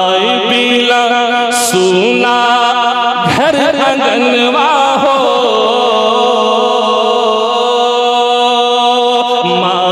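A man's voice singing a naat into a microphone, in long, held, ornamented notes that bend and waver, with a swoop up in pitch about three seconds in. A steady low drone sounds beneath the voice.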